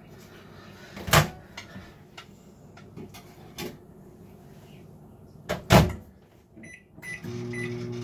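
Microwave oven door opened with a clunk about a second in and shut with a louder double clunk near six seconds. Three short keypad beeps follow, and near the end the oven starts running with a steady hum.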